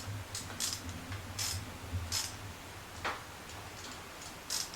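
Hand ratchet clicking in short, irregular runs as it tightens the 8 mm clamp bolts of a brake master cylinder on ATV handlebars.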